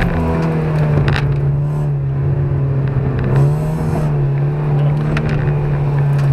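Car engine running hard, heard from inside the cabin, its pitch held nearly steady with small rises and dips. A brief hiss about three and a half seconds in.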